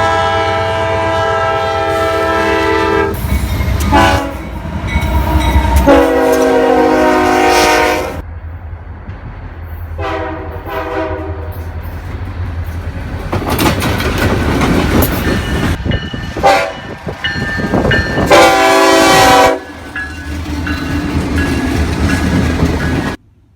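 Nathan K5LA five-chime air horn on a Norfolk Southern GE Dash 9 diesel locomotive, sounded in a string of long and short blasts as a chord of several notes. Under it run the locomotive's low engine rumble and the clatter of the train's wheels. The sound cuts off suddenly near the end.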